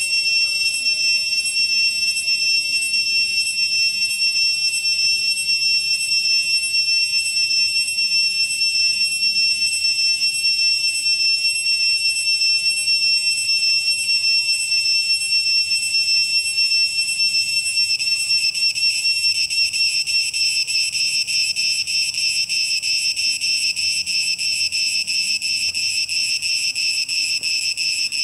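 Cicada singing: a loud, steady, high-pitched buzz that shifts to a more pulsed texture about two-thirds of the way through.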